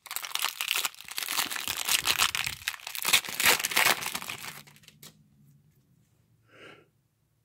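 Foil wrapper of a 2018 Bowman baseball card pack being torn open and crinkled by hand for about five seconds, then the crinkling stops as the cards come out.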